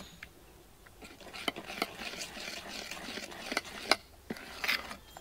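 Steel spoon stirring thick, wet idli batter in a stainless steel bowl: a faint, soft scraping with several light clicks of the spoon against the bowl.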